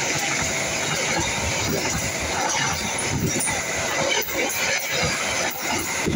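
Stainless-steel passenger coaches of the Argo Bromo Anggrek express passing close by at speed: a steady rush of wheel and air noise, with uneven wheel clatter that stands out more from a couple of seconds in.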